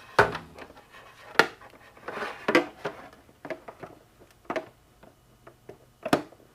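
Scattered clicks and knocks of hands handling the LED trunk light and its wire while the wire is fed through a freshly drilled hole in the trunk, with a brief rustle in between.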